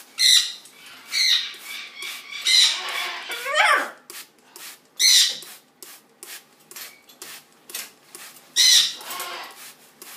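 Macaw giving loud squawks every second or two, one of them rising sharply in pitch, over the quick rustling of its flapping wings.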